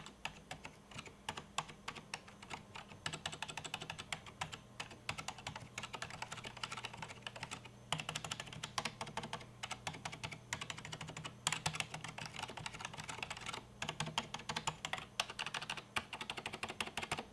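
Fast typing on a Matias Quiet Pro mechanical keyboard with Matias Quiet Click switches: a continuous run of quiet key clicks, with brief pauses about eight, eleven and fourteen seconds in.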